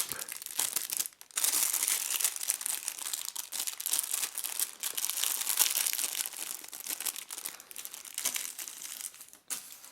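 A watch strap's packet crinkling as it is opened by hand and the strap pulled out. The rustling is dense and continuous, with a brief pause about a second in, and it tapers off near the end.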